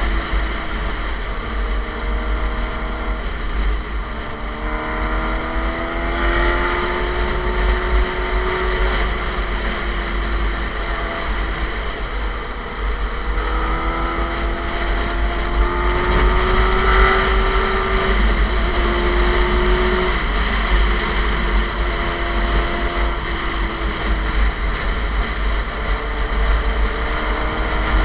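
Suzuki GSX-R motorcycle engine through an SC Project aftermarket exhaust, pulling along the road. Its pitch climbs and then drops back several times as the rider shifts gear, over heavy wind noise buffeting the microphone.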